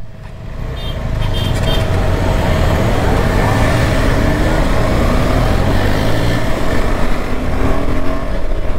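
KTM Adventure motorcycle's single-cylinder engine pulling away from a crawl and accelerating hard, its note climbing again and again as it runs up through the gears, with wind rush on the rider's microphone.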